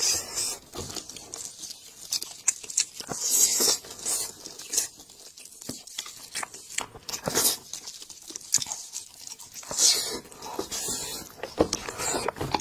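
Spiced sheep's head meat being torn apart by hands in plastic gloves, with wet sticky pulling and irregular clicks, close to the microphone, mixed with chewing. Short hissy bursts stand out about three and ten seconds in.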